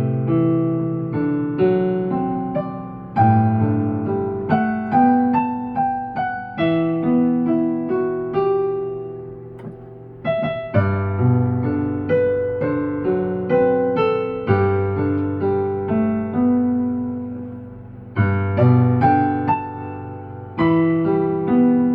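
Solo piano playing a slow ballad: a melody over chords and low bass notes, each note struck and left to fade.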